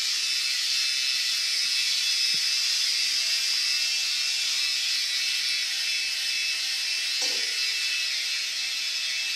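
Handheld hair dryer running steadily on a small dog's wet coat: a continuous rush of air with a faint motor whine.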